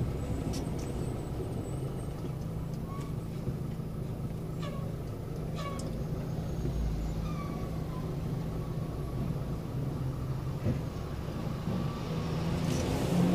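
Road traffic heard from inside a moving vehicle: a steady low engine drone, with a few short, falling high chirps in the middle.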